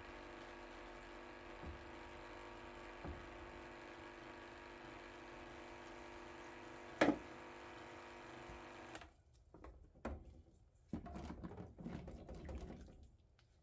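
Parts washer's electric pump running with a steady hum as solvent flows through its nozzle, with one sharp knock about seven seconds in. The pump cuts off about nine seconds in, followed by irregular knocks and rubbing as the alloy final drive casing is handled and brushed in the washer tub.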